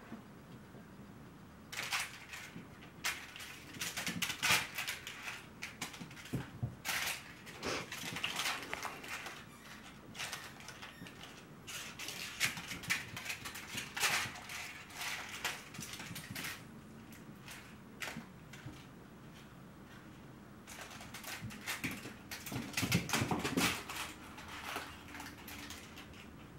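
Bengal kittens playing with crinkle toys: spells of quick crinkling and rustling bursts, mixed with paws and claws skittering on a wooden floor.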